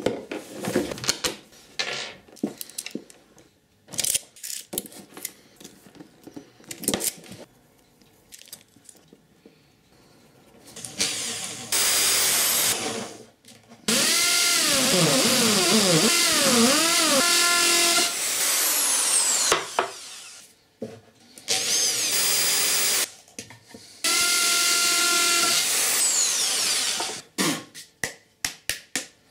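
Electric drill boring into a block of wood in four runs, the longest with its motor whine swinging up and down in pitch and then winding down. Scattered knocks and clicks of handling come before the drilling and again near the end.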